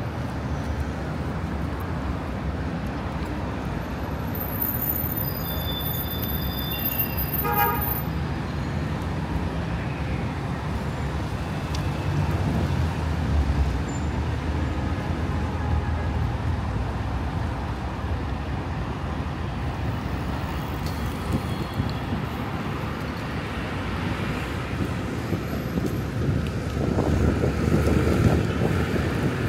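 Street traffic on a city avenue: a steady rumble of passing cars and buses, with a short, high toot about five to eight seconds in and a louder vehicle going by near the end.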